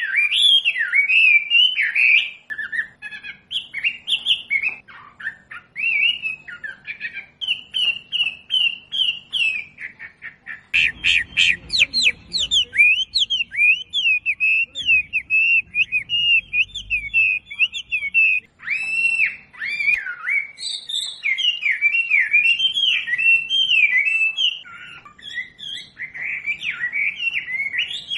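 Wambi bird singing: a fast, varied stream of sharp chirps and short whistled phrases with little pause. A faint low rumble sits underneath for several seconds around the middle.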